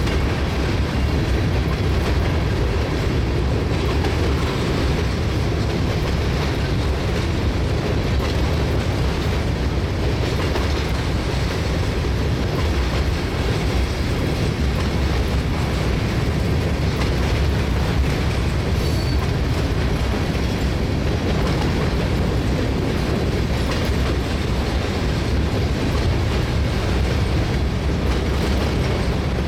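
Norfolk Southern covered hopper cars rolling past at steady speed: a continuous, even noise of steel wheels on the rails.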